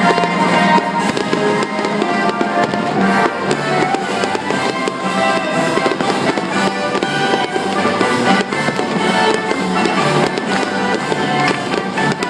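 Music playing with fireworks crackling and popping throughout.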